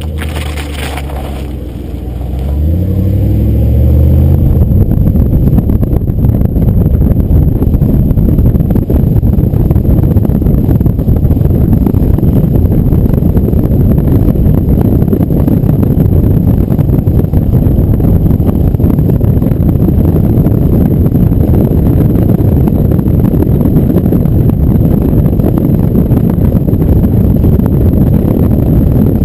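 A car engine revving, its pitch rising over the first few seconds. It then gives way to a loud, steady low rumble of wind buffeting the microphone of a camera mounted on a moving vehicle.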